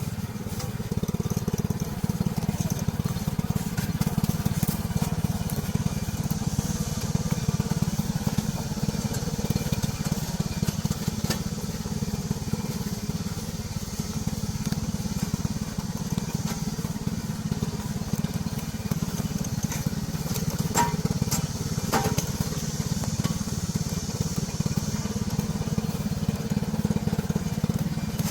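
Mower running steadily while cutting weeds: a continuous low rumble, with a few sharp clicks about two-thirds of the way through.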